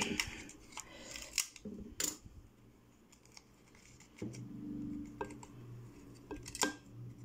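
Clicks and scrapes of a tool and fingers working at a small hard-plastic toy toilet, prying a stuck part loose. A low steady hum comes in about four seconds in.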